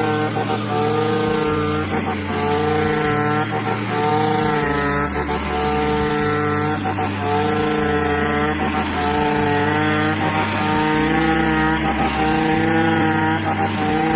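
Background music: a buzzing, sustained synth-like lead held over a bass line that pulses in even, roughly one-second notes.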